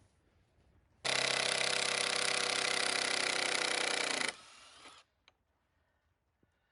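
A power tool's motor runs steadily at full speed for about three seconds, then is switched off and winds down briefly.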